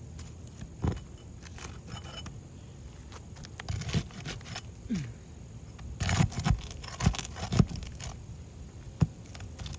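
Scattered metal clicks, clinks and short scrapes of a snake tool, a flat shingle nail remover, being worked under asphalt roof shingles to pull the nails, with a cluster of louder clinks past the middle.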